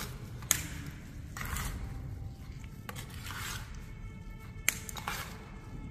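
Small pieces of cut mirror glass being handled and pressed into plaster on a wall: short scraping and rubbing sounds, with a sharp click about half a second in and another near the end.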